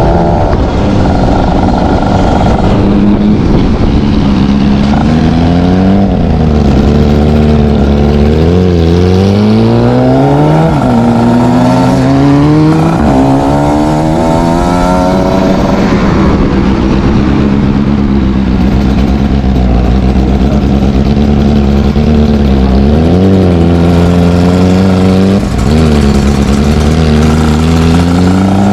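Exhaust of a ZX 300 R motorcycle engine running continuously, its revs climbing and dropping sharply several times, with a steadier stretch in between.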